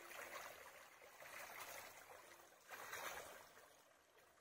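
Faint running water of a shallow stream, swelling briefly about three seconds in.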